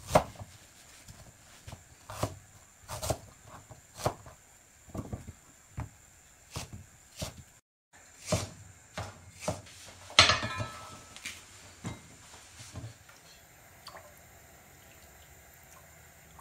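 Water with pork ribs boiling under a glass pan lid to blanch the ribs, with irregular plops and knocks about once a second as the bubbling jostles the lid. A louder clatter with ringing about ten seconds in.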